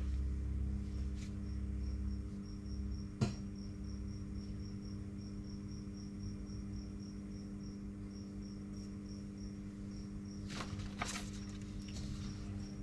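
A cricket chirping steadily at about four high chirps a second, with a few short pauses, over a steady low hum. There is a single sharp tap about three seconds in, and sheets of paper rustle near the end.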